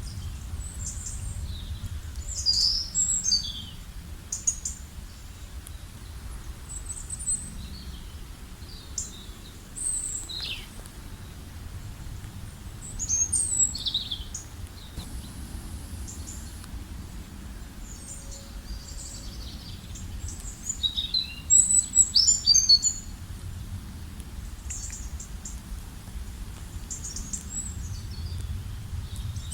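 Wild birds singing and calling in scattered short chirps and trilled phrases, with the loudest bouts about 3, 13 and 22 seconds in, over a steady low rumble.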